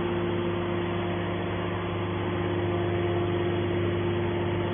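Hydraulic scrap-metal baler running while pressing stainless steel, its power unit giving a steady, even hum.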